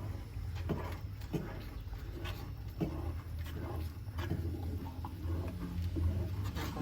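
Spoon clicking and scraping in a pan as a thickening milk sauce is stirred, with short knocks at irregular intervals over a steady low hum.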